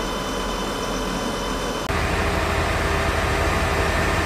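Vehicle engines idling, a steady hum with a few faint steady whines. About two seconds in the sound cuts abruptly to a heavier, lower engine rumble.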